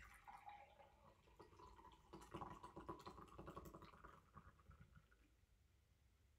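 Faint squeaking and rasping from a fast-food drink cup's plastic lid and straw being worked by hand, loudest a couple of seconds in and dying away after about five seconds.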